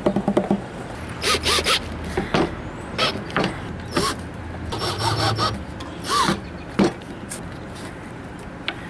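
Cordless drill driving screws into flat-pack furniture panels in several short bursts, with rubbing and knocks from the panels being handled in between.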